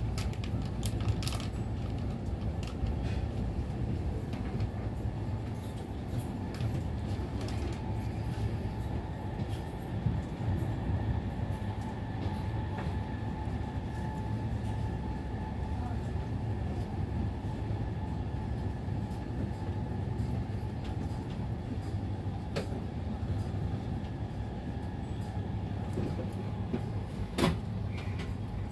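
Interior of a moving VR Intercity train carriage at speed: a steady low rumble of the wheels on the track with a faint steady whine. A few sharp clicks come near the end, the loudest close to the end.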